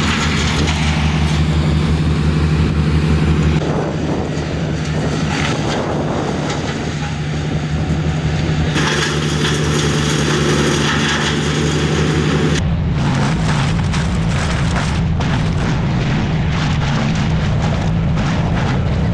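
A machine engine running steadily with a constant hum, mixed with a noisy rushing sound that changes abruptly a few times.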